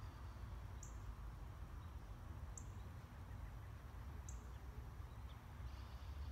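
Quiet outdoor ambience: a short high chirp repeats about every two seconds, three times, over a steady low rumble.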